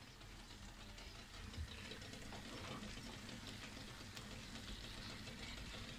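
Wooden spoon stirring food in a frying pan on a gas stove, with a faint sizzle of frying and small scrapes and clicks against the pan.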